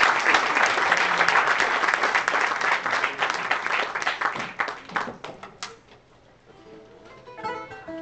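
Audience applause that fades out after about five seconds, followed by a few plucked ukulele notes near the end.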